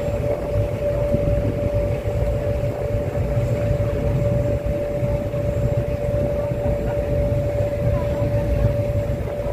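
A vehicle's motor running steadily: a low rumble with a constant whine above it.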